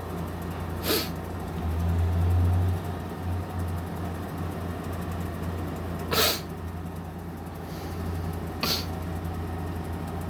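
General Electric 5,050 BTU window air conditioner running with a steady low hum as its compressor comes on; the hum swells for about a second around two seconds in. Three brief breathy noises cut across it, about a second in, around six seconds and near the end.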